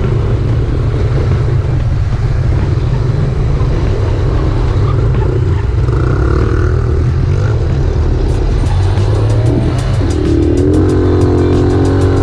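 Motorcycle on the move, heard from the rider's own bike: a steady engine drone mixed with wind rumble on the microphone.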